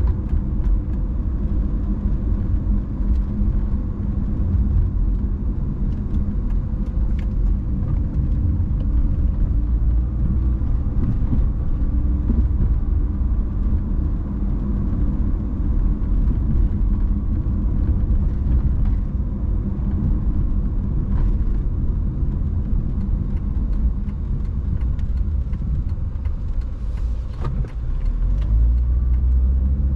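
Car driving: a steady low rumble of engine and tyre noise, with a few faint ticks, swelling slightly near the end.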